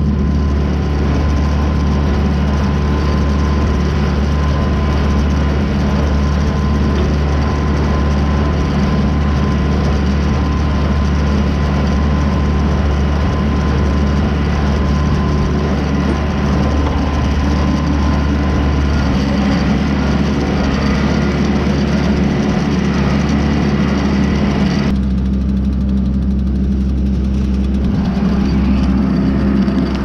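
Massey Ferguson compact tractor engine running steadily under way. The upper part of the sound drops away for a few seconds near the end, leaving a duller drone.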